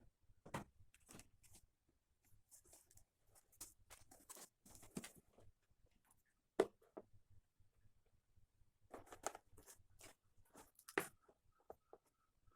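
Faint, scattered handling noise: irregular small knocks, clicks and rustles, with the sharpest knock about halfway through.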